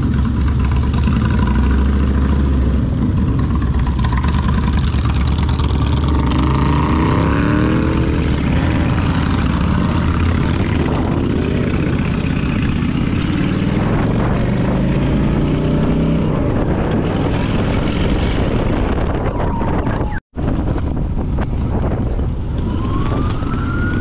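Motorcycle engine running while riding, its pitch rising and falling several times as the throttle opens and closes. The sound drops out for an instant near the end.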